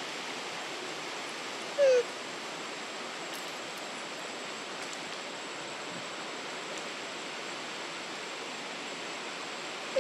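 Steady outdoor background hiss with one short, falling squeak from a baby macaque about two seconds in, and another right at the end.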